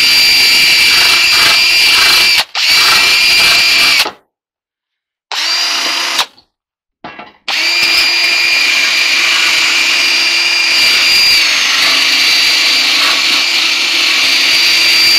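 Cordless drill with a wire wheel spinning against a clothes dryer panel, scrubbing off old door felt and rubbery glue. A steady whine that cuts out twice, around four and six seconds in, then runs on without a break.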